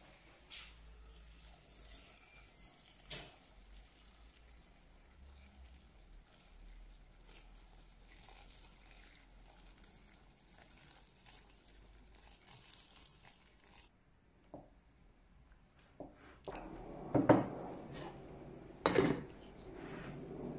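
Water poured into a stainless steel pot onto a block of instant noodles, a faint splashing trickle. Near the end a glass pot lid is set on the pot with two sharp knocks against the steel.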